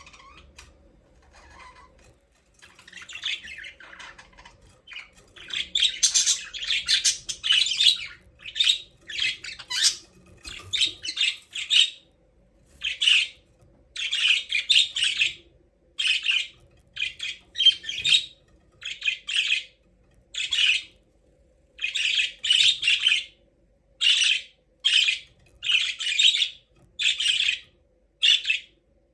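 Budgerigars chirping and squawking in quick chattering bursts. The calls start about three seconds in, run thick for several seconds, then come as short separate bursts about once a second.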